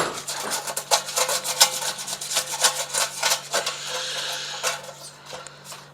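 Sandpaper rubbed by hand over a metal washer and seal face on a sterilizer's heating element, in quick back-and-forth strokes about two to three a second that fade out near the end. It is cleaning the sealing surface of particles so the fitting will not leak water.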